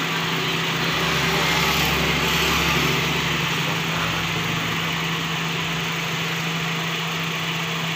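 Honda Freed's 1.5-litre four-cylinder petrol engine idling steadily. A passing vehicle swells over it in the first few seconds, loudest about two seconds in.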